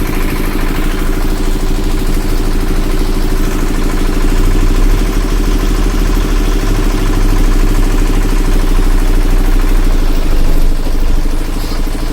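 Water tanker truck's engine running steadily at low revs, a little louder through the middle, as the truck is moved back slightly.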